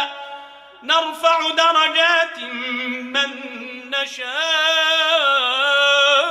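Man chanting Quran recitation (tilawa) in a slow, melodic style, drawing out long wavering notes. After a short pause for breath near the start, he sings two long ornamented phrases.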